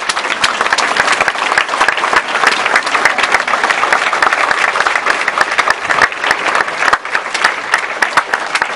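Loud, dense applause from a large crowd, many hands clapping at once without a pause.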